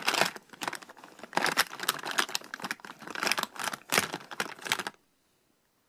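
Plastic makeup compacts, eyeshadow pots and jars clicking and clattering against each other as a hand rummages through a bin full of them. The clatter stops suddenly about five seconds in.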